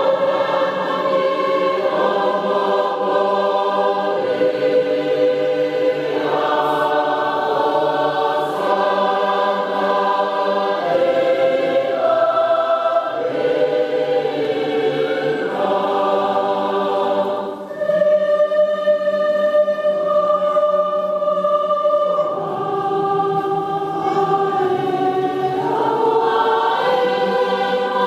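A church congregation singing a hymn together, holding long notes that shift every second or two, with a brief pause for breath about two-thirds of the way through.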